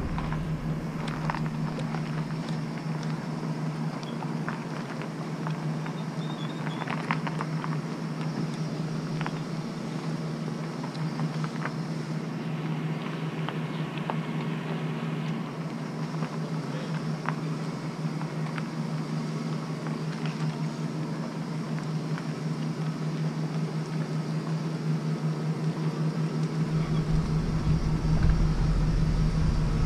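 Van engine running steadily at low speed as it backs a boat trailer down a launch ramp, a steady hum with faint small ticks. A deeper rumble joins near the end.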